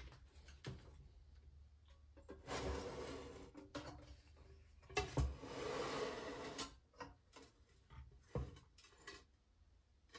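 Hands working a hose back onto its fitting on a small engine: two longer rubbing, scraping sounds with scattered light clicks and knocks of plastic and metal parts.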